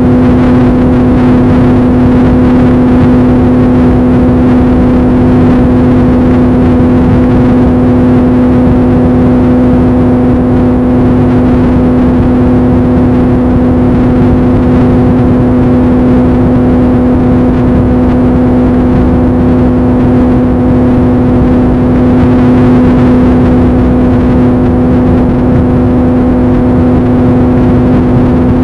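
A loud, steady hum at one constant pitch over a rushing noise, unchanging throughout.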